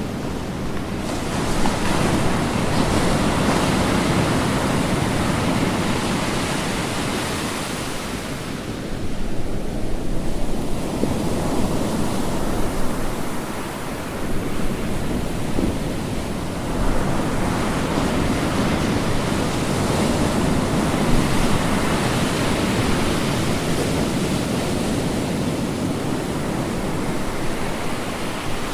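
Ocean surf: waves breaking and washing in a continuous rush, swelling and easing every several seconds.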